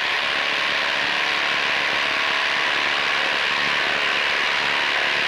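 Flex cordless impact driver hammering steadily without a break as it drives a 4-inch lag screw into a log, under heavy load.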